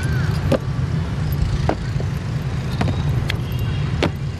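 Boots of a ceremonial honour guard striking stone pavement in a slow high-stepping march, a sharp footfall about every second, over a steady low rumble.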